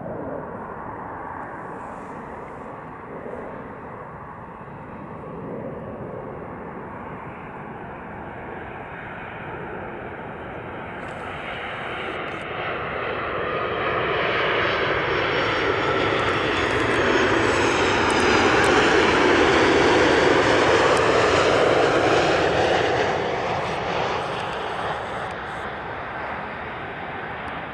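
Boeing 737-700 BBJ jet on landing approach, its CFM56-7 turbofan engines growing steadily louder as it comes in low, loudest about two thirds of the way through as it passes close by, then fading.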